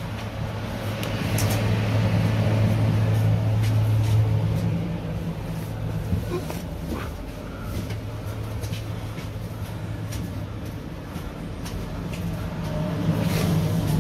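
Interior noise of an NMBS MS75 electric multiple unit: a steady low hum with scattered clicks and rattles. It grows louder about a second in, eases off, and swells again near the end.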